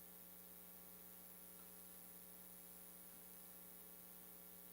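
Near silence with a faint, steady electrical hum made of many evenly spaced steady tones: mains hum in the recording.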